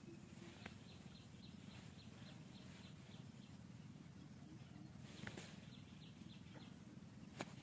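Near silence: faint outdoor ambience with a steady low hum and two runs of quick high chirps, about four a second. A few sharp clicks, the loudest near the end.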